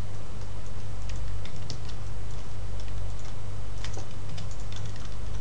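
Irregular clicking of a computer keyboard and mouse, over a steady low hum.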